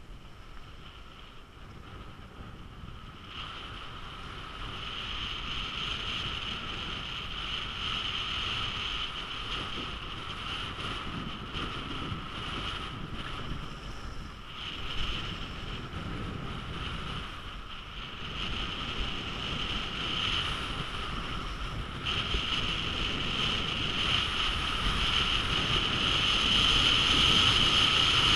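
Wind rushing over an action camera worn by a skier heading downhill, with a steady whistling tone in it and the hiss of skis on packed snow. It grows louder as the skier picks up speed.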